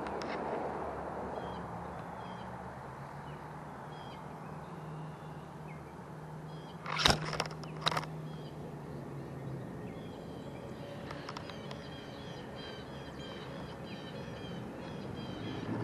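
Outdoor stream-side ambience: a steady rush of flowing water under a low steady hum, with faint bird chirps. About seven seconds in, a brief cluster of sharp clicks and knocks from handling gear close to the microphone.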